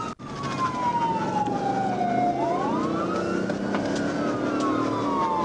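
Police car siren on a wail, slowly sweeping down in pitch, rising again about halfway through, then falling once more, over engine and road noise. The sound drops out briefly just after the start.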